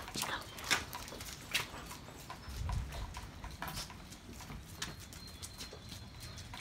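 German shepherd's claws and paws on a wet concrete patio as it moves about: irregular sharp clicks and taps.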